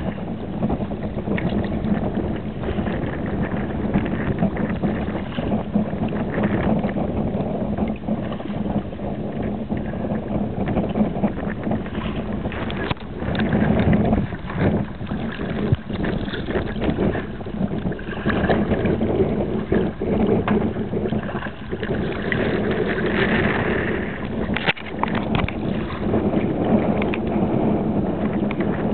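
Wind buffeting the microphone over water splashing and rushing along the hull of a sea kayak under sail in choppy water.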